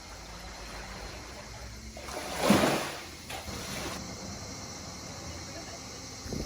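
Calm sea water gently lapping and sloshing, with one louder surge about two and a half seconds in.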